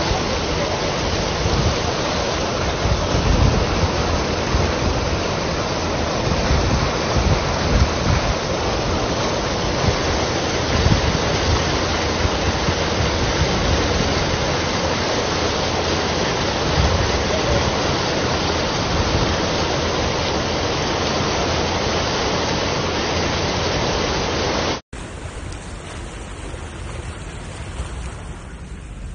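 Steady loud rush of flowing floodwater, with wind rumbling on the microphone. About 25 seconds in it cuts suddenly to a quieter, steady noise from another recording.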